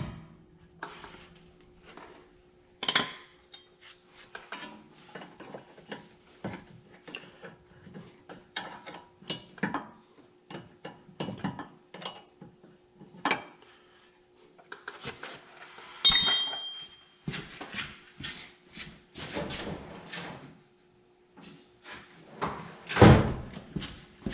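Hand wrench and steel bolt clicking and clinking irregularly while the upper ball joint's stud bolt is worked loose on the steering knuckle. One bright ringing metal clink comes about 16 seconds in and a louder knock near the end, over a faint steady hum.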